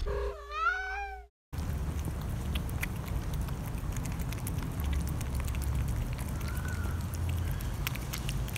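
A short cat meow sounds over the logo about a second long. Then two cats eat tuna close to the microphone: many small wet clicks of chewing and licking over a steady low rumble.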